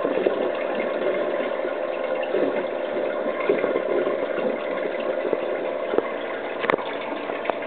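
Water rushing and gurgling through an aquarium siphon hose as it drains sediment-laden water out of the tank, with a single sharp click near the end.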